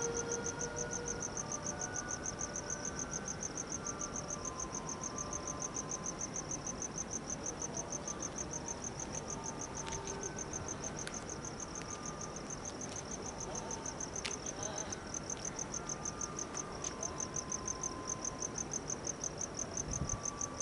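An insect chirping steadily in a high, even pulse of about five chirps a second, with a few faint clicks.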